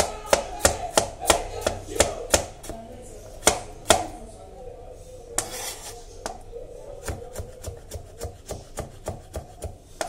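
Chef's knife slicing pumpkin into strips on a cutting board: a run of sharp knocks as the blade strikes the board, about three a second. They are loud for the first four seconds, then after a short pause go on as lighter, evenly paced knocks.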